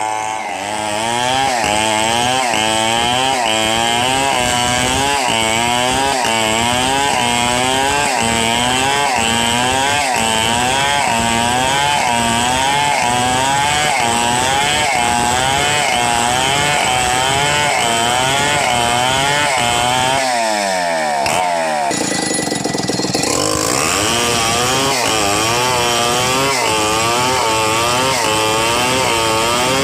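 Stihl 070 chainsaw, a big two-stroke, running under load as it rips along a log, its engine note rising and falling about twice a second. A little past two-thirds of the way through, the note drops away briefly, then picks up again.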